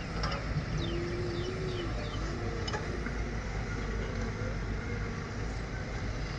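Heavy construction machinery running steadily, mostly a low diesel-engine rumble.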